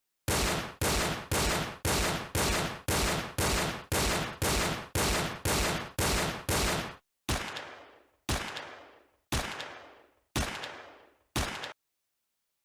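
Gunshot sound effects: about fourteen shots fired at an even pace of two a second, then five more spaced about a second apart, each fading out longer, the last one cut off short.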